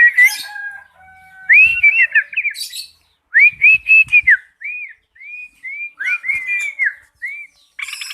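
White-rumped shama singing: phrases of clear, slurred whistled notes, with a few short harsh rasping calls mixed in.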